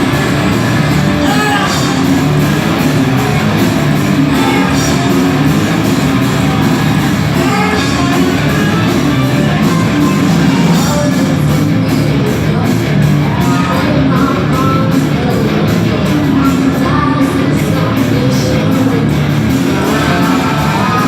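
Live rock band playing loud: distorted electric guitars, bass and drums with a steady beat, and a singer singing and shouting over them.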